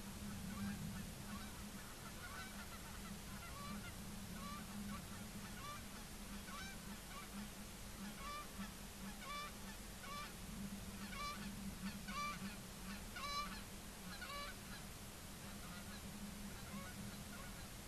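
Geese honking in flight: a run of repeated honks that builds toward the middle and fades near the end, over a steady low hum.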